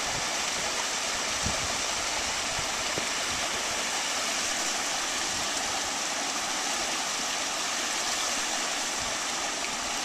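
Steady, even rushing hiss of running water, with a faint knock about one and a half seconds in.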